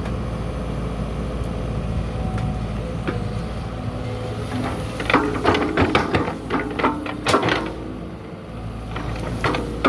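Excavator engine running steadily, with a quick series of sharp clanks and knocks about halfway through and another just before the end.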